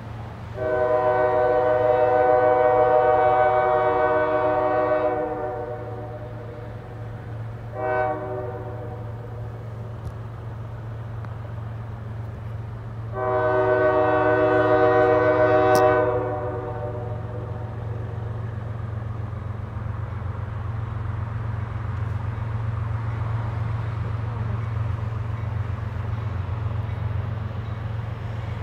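A CSX GE ES40DC diesel locomotive's multi-tone air horn blows three blasts: long, short, long. This is the horn warning for a grade crossing. A steady low rumble runs underneath and swells slowly as the train comes closer.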